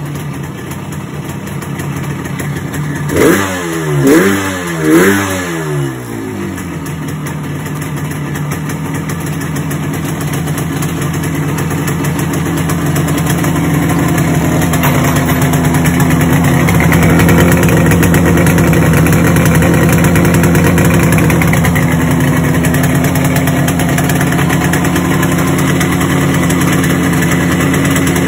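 Yamaha RD350's air-cooled two-stroke parallel twin running: three quick throttle blips about 3 to 5 seconds in, then idling with the idle slowly climbing and settling higher. The owner puts this down to the bike running out of petrol, with one cylinder firing intermittently because its longer fuel line has run dry.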